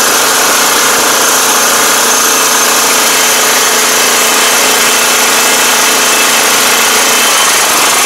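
A 2021 Iseki five-row rice transplanter's engine running steadily, heard close up, with the machine's mechanical clatter.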